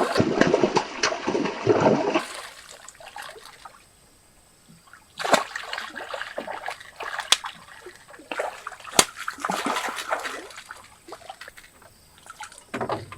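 Water splashing and sloshing, heavy for the first two seconds, then dying away into a few short, scattered splashes.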